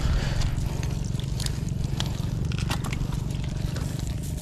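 A wet cast net and its catch being handled: scattered small clicks, scrapes and splashes over a steady low hum.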